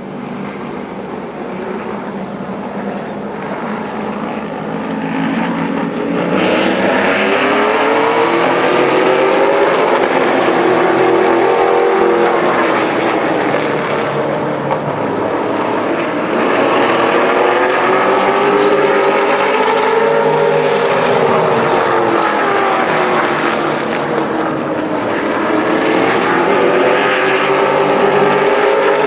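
A pack of Pro Late Model stock cars racing on a paved oval, several V8 engines running hard together. Their pitches rise and fall as the cars pass, and the sound grows louder about six seconds in.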